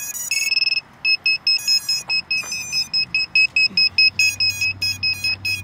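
Onboard buzzer of an iFlight Protek 25 cinewhoop drone beeping: one longer beep, then a quick run of short, high beeps, about four a second, with a few higher chirps mixed in.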